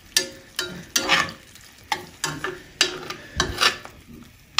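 Metal slotted spoon stirring steak and gravy in a cast-iron pan, with repeated short scrapes and clinks against the pan, unevenly spaced about every half second.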